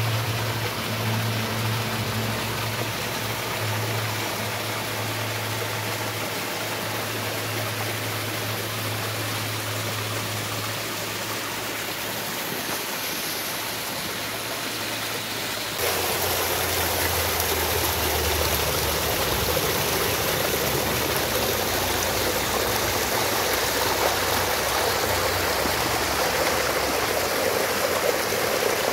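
Small waterfalls splashing into a shallow rocky pool: a steady rush of falling water with a low hum underneath. About sixteen seconds in it switches to a closer, louder rush of white water pouring down a narrow rock channel.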